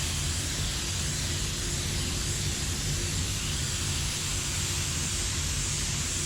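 Steady hiss of a paint spray gun's air, with a low steady hum underneath.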